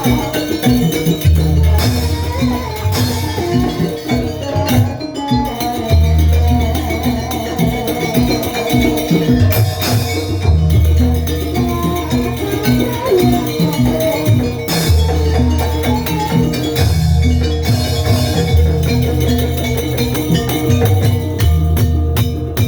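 Live Banyuwangi jaranan ensemble music: drums and rattling percussion strike over deep booming notes that return every few seconds, under a repeated mid note and a wandering melody line.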